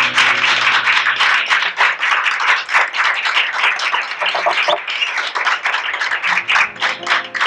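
Audience clapping at the end of a song, a dense, steady patter of many hands.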